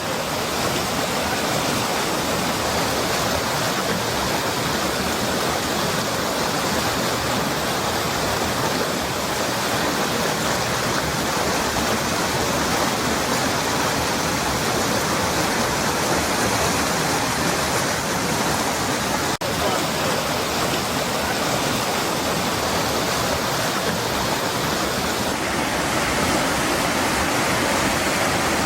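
Steady rush of fast-flowing river water, an even hiss and rumble, with a momentary break about two-thirds of the way through.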